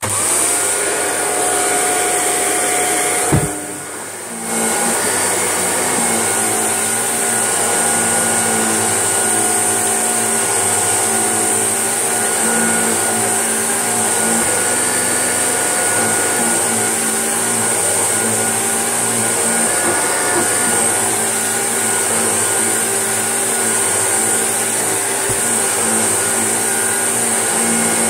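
Shark upright vacuum cleaner switched on and run steadily over a rug, its motor giving a loud whirring hiss. A sharp knock comes about three seconds in, the sound drops for about a second, then comes back to full and stays steady.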